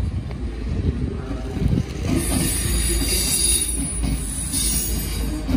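DSB IC3 (MF) diesel multiple unit passing close by: a steady low rumble of wheels on rail, with a high hiss that comes in about two seconds in.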